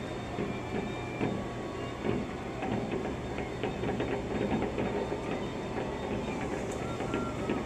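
Fireworks crackling and popping in rapid, irregular succession, heard through a window, with a few short high whistles, over a steady low hum.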